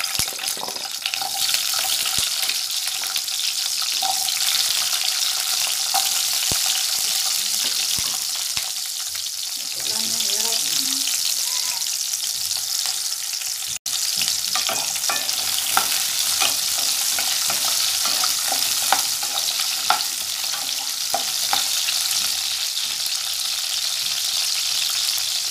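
Whole shallots frying in hot oil with whole spices in a kadai: a steady sizzle with scattered small pops and clicks. The sound cuts out for an instant a little past halfway.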